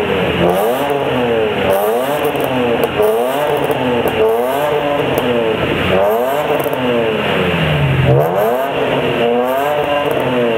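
BMW M3 engine revved repeatedly through its exhaust while parked: about seven quick revs, each rising in pitch and falling back, one after another.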